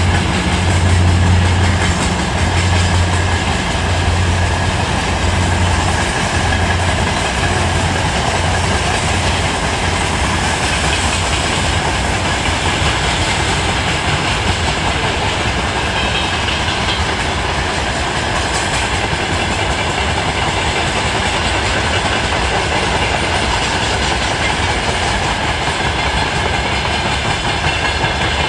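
Freight train wagons rolling past on the rails, a steady rumble of wheels on track. A low drone is strongest over the first several seconds and then eases.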